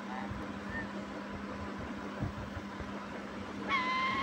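Steady outdoor background noise with a constant low hum. Near the end comes a single clear, high, pitched call held for about a second.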